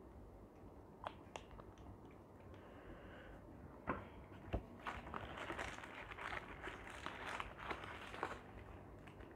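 A few light clicks and a knock, then a paper food wrapper crinkling for a few seconds as it is unfolded inside a cardboard box.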